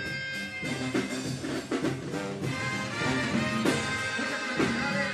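A live regional Mexican band playing, with trumpets, drum kit and acoustic guitars.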